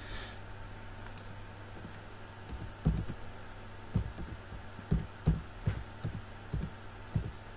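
Scattered soft clicks and taps from a computer keyboard and mouse, about seven spread irregularly over the last few seconds, over a steady low electrical hum.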